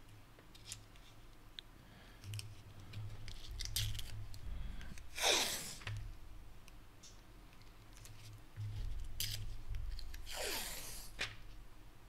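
Blue painter's tape ripping off its roll in two long pulls, about five and ten seconds in, each a rasping sweep that falls in pitch. Between the pulls come faint crinkles and handling of the tape as it is pressed down.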